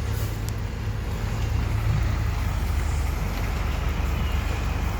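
Heavy diesel engine running steadily, a continuous low hum with no changes in pace.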